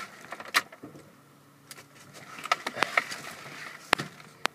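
Ignition key and key ring of a 2013 Vauxhall Combo van jangling and clicking in the ignition lock as the key is put in and turned. There are several sharp clicks, a cluster in the middle and two single clicks near the end, with a faint low hum in between. The engine is not yet running.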